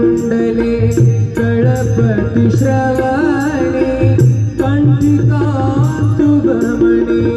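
Devotional song: a singing voice over drum and sharp percussion strokes keeping a steady beat.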